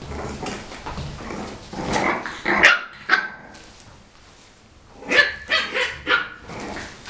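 Six-week-old English bulldog puppies barking at each other in play: a few yaps about two seconds in, then a quick run of four or five sharp barks about five seconds in.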